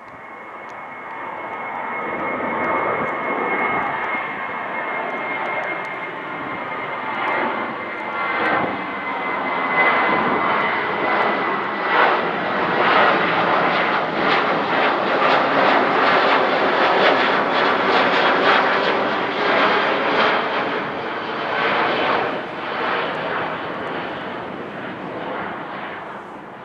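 Twin-engine jet airliner climbing out overhead after takeoff. The engine roar swells over the first few seconds, with a high whine that slowly drops in pitch. The sound turns crackly at its loudest and then begins to fade near the end.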